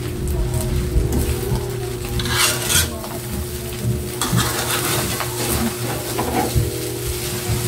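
Metal spatula scraping and clinking against an aluminium wok as fried rice is stirred and tossed, with the rice sizzling in the hot pan.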